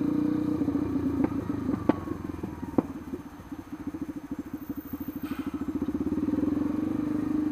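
Yamaha Lander 250's single-cylinder engine running at low revs. Its note drops away about three seconds in, where the separate firing pulses come through, then builds again toward the end.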